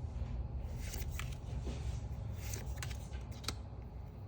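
Pokémon trading cards being slid and flicked through by hand: several light clicks and soft scrapes of card stock, over a low steady hum.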